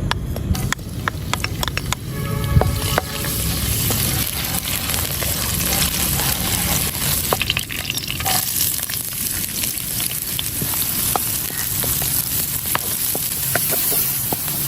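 Food sizzling as it fries in a hot pot, with a utensil stirring it and clicking against the pot.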